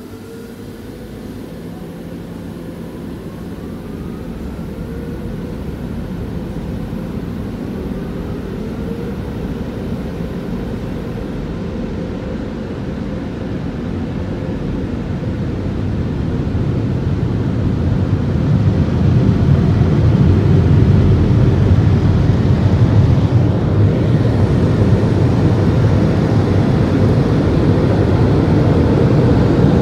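Onboard blower dryers of a Mark VII AquaJet GT-500 rollover car wash, heard from inside the car as a loud, steady, low rush. It grows steadily louder as the dryer gantry moves over the car, with the biggest rise past the halfway point.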